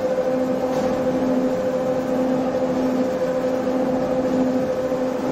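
Tea-processing machinery running with a steady hum, a lower tone in it dropping out briefly about every second and a half.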